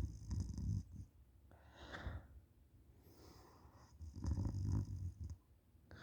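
A sleeping person snoring with the mouth open: a rattling low snore on the in-breath at the start and again about four seconds in, with a breathy out-breath between them.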